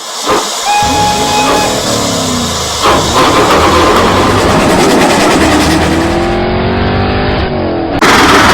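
Race-car engine sound effect revving up and down over a rushing noise. Near the end it switches abruptly to a louder, harsher rush.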